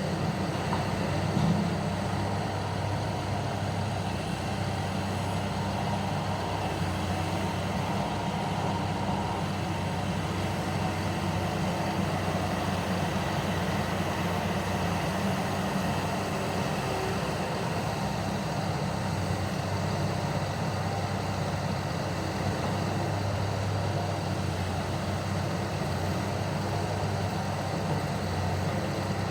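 Heavy diesel engine of mining machinery running at a steady drone, with one brief louder knock about a second and a half in.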